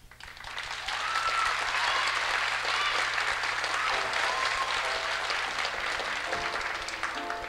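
Audience applause, a dense steady clapping that dies down near the end as piano music begins.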